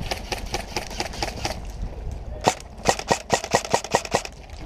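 Airsoft guns firing: a fast run of faint shots in the first second and a half, then a sharper string of about ten shots, roughly seven a second, from about two and a half to four seconds in.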